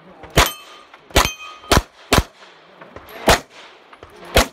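9mm CZ Shadow 2 pistol fired six times in an uneven string at a practical-shooting stage. A ringing ping of struck steel targets lingers after the first two shots.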